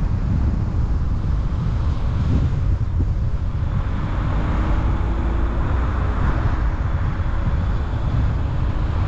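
Car driving, with heavy low wind rumble buffeting the microphone over the road noise. A faint engine note rises a little in pitch through the middle.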